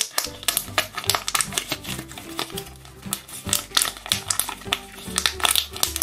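Clear plastic chewing-gum blister-pack bubbles in a homemade pop-it toy being pushed in and out by the fingers, a quick run of crinkly plastic clicks and pops, over background music.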